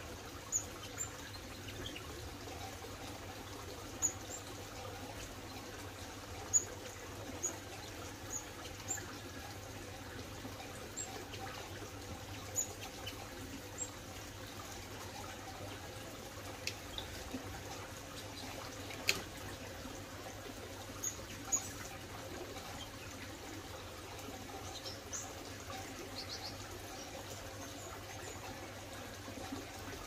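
Steady trickle of running water, with short, high chirps from small aviary birds every second or two and a few sharp ticks, the loudest about two-thirds of the way in.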